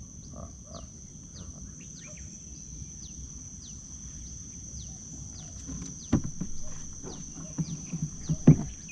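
Steady high-pitched insect drone from the riverside, with a short falling chirp repeating about three times every two seconds. Two sharp knocks stand out about six and eight and a half seconds in.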